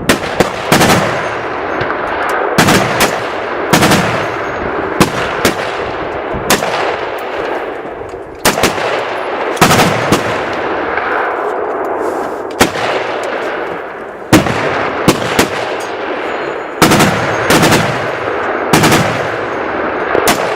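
Gunfire from several guns firing at will: a long, irregular string of sharp shots, sometimes two or three close together, each trailing off in an echo.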